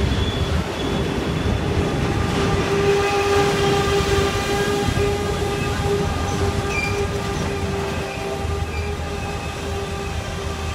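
Freight train of covered hopper wagons rolling past, a low rumble from the wheels with a long steady squealing tone held over it. The sound eases off over the last few seconds as the end of the train moves away.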